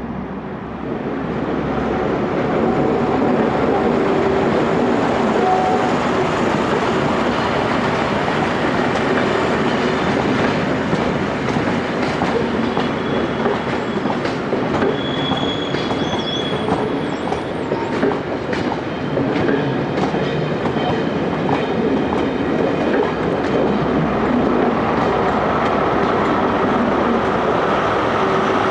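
A Network Rail test train with Class 43 HST power cars passing at close range: a loud, steady rumble with wheels clicking over rail joints. A brief high wheel squeal comes about halfway through.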